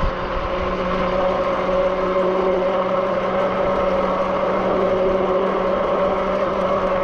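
Zugo electric bike ridden at a steady speed: its motor gives a steady whine over a continuous rush of wind and tyre noise.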